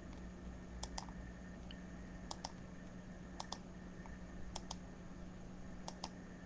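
Faint clicking at a computer, heard as five quick pairs of clicks about a second apart, over a low steady hum.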